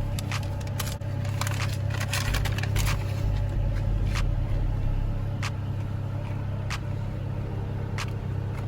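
Nissan 350Z's V6 idling as a steady low hum, with a string of sharp clicks and crackles from a small trim piece being handled and unwrapped.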